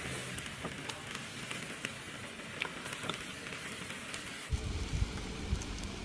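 Hot pot broth bubbling in a metal pot: a steady hiss with scattered small pops. About four and a half seconds in this gives way to a low rumble of wind on the microphone.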